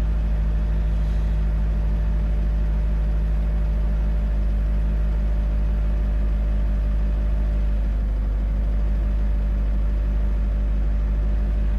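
GAZ Gazelle's ZMZ-406 fuel-injected inline-four idling steadily, still cold just after a start at −37 °C on 10W-40 oil, heard from inside the cab.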